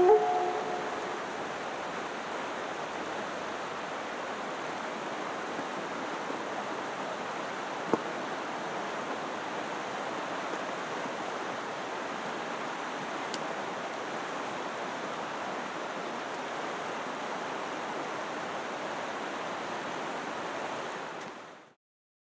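Steady rush of a shallow river running over rapids, while the last note of a Native American style flute fades out in the first second. A single sharp click about eight seconds in; the water sound fades out near the end.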